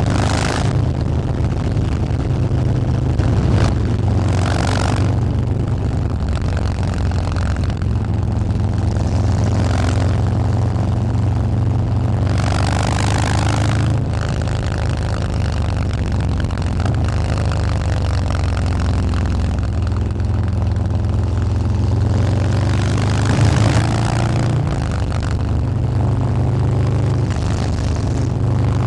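Harley-Davidson Fat Boy's 131 ci (2147 cc) Stage 4 V-twin running through a Bassani 2-into-1 exhaust, a deep steady exhaust note. A few brief hissy swells rise over it, around 5 s, 13 s and 23 s.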